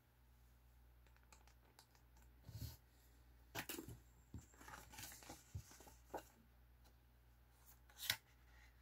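Small clear plastic parts bag torn open and handled, with a series of short crinkles and rustles. Near the end comes a sharper, louder rustle as a paper instruction sheet is unfolded.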